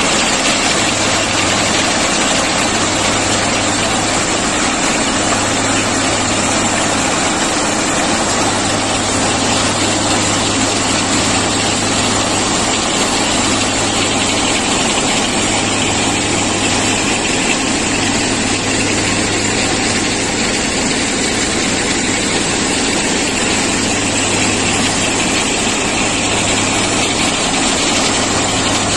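Plasser ballast cleaning machine running and digging out and cleaning the track ballast: a loud, steady mechanical noise with a constant low hum underneath.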